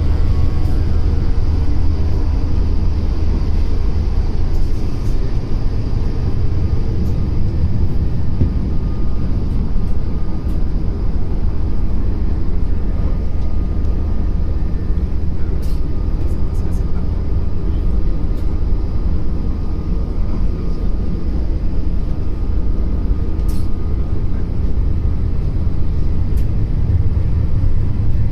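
Passenger train running, a steady low rumble with a few faint brief clicks.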